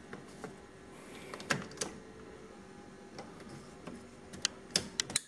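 Sharp plastic clicks and knocks from a charge roller and its holders being fitted back into a Kyocera laser printer: two about a third of the way in, then three in quick succession near the end, over a faint steady hum.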